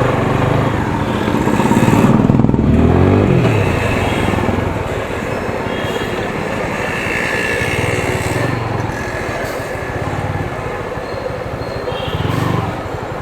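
TVS Apache RTR 200 motorcycle running on a city road, engine and road noise mixed with wind on the microphone. The engine note falls about two to three seconds in as the bike slows.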